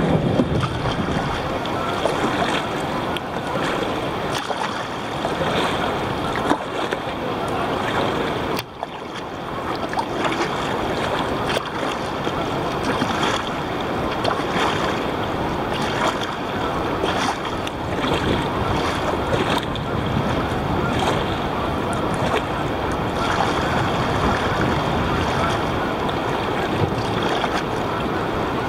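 Water splashing and lapping against a kayak's hull as it is paddled through choppy water, with wind buffeting the microphone; a steady, even wash of sound.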